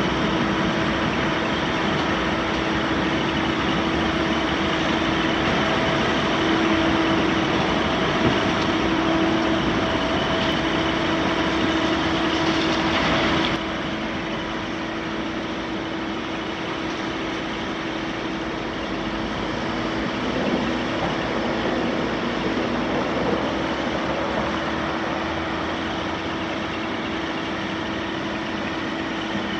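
Caterpillar 966M wheel loader's C9.3 ACERT diesel engine running steadily, with a steady whine over the engine noise. The sound drops somewhat in level about halfway through.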